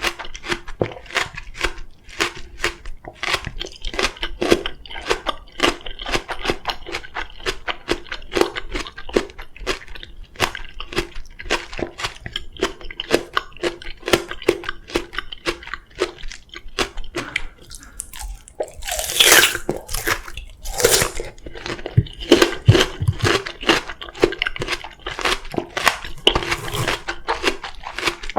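Close-miked chewing of crisp oriental melon (chamoe): steady wet crunching, about three to four crunches a second. Two louder, longer bites come about two-thirds of the way through.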